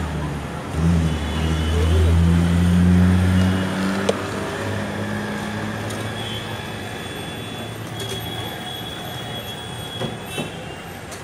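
Heavy street traffic: a large vehicle's engine drones loudly for the first few seconds and then fades. High, thin squeals follow over the rest, with a couple of small knocks near the end.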